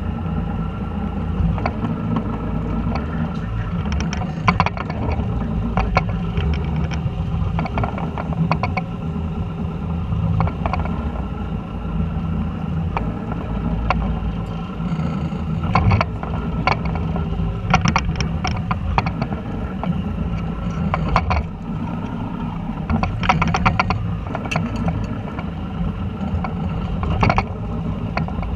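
Fishing boat's engine running steadily as a low drone, with scattered clicks and rattles every few seconds.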